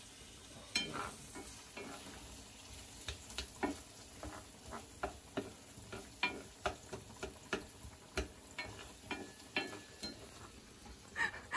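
Irregular clinks and knocks of a utensil against cookware, one to three a second, some ringing briefly, over a faint steady sizzling hiss of cooking.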